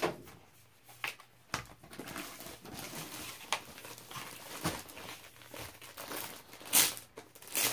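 Clear plastic wrapping on a rolled diamond-painting canvas crinkling as it is handled, with a few sharper rustles, the loudest near the end.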